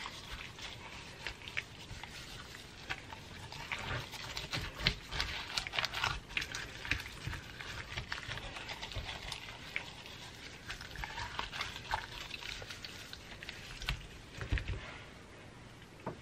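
Wet squelching and crinkling of a plastic-gloved hand rubbing dry seasoning inside the cavity of a raw whole chicken, in irregular quick squishes and crackles. A dull thump near the end.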